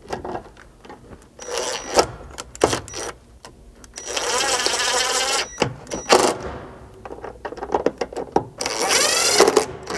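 Cordless drill-driver driving the grab handle's mounting screws into the roof trim: one motor run of about a second and a half, with the pitch bending as the screw seats, and a shorter run near the end. Clicks and knocks sound between the runs.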